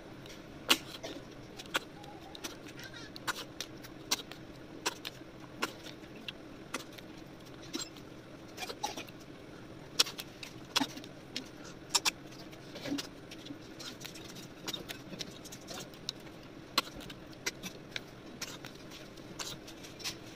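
Close-up eating sounds: irregular sharp wet clicks and smacks from a mouth eating river snails and rice by hand, one or two a second, over a faint steady hum.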